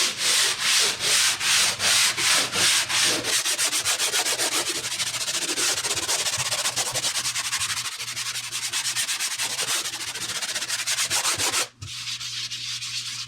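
Sandpaper on a hand sander being rubbed back and forth over a dried coat of quick-set drywall joint compound on a patch, lightly sanding it smooth. At first about three strokes a second, then quicker, shorter strokes from about three seconds in; the rubbing stops briefly near the end and goes on more quietly.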